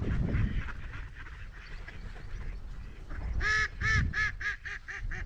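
Mallard ducks quacking, with a brief low rumble at the start. About three seconds in one duck gives a fast run of quacks, about four a second, loud at first and then fading.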